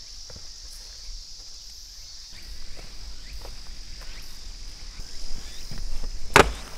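Sneakered footsteps on a dirt forest floor with dry twigs and leaves, getting busier and louder, then a single heavy thump about six seconds in as a bagged tent is set down on a tree stump. A steady high insect drone sits underneath.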